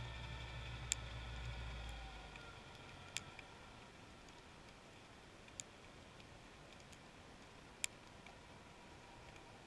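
Heard underwater: a distant motor's low hum fades out over the first two seconds, leaving a faint hiss broken by sharp single clicks, four loud ones about two seconds apart and a few softer ticks.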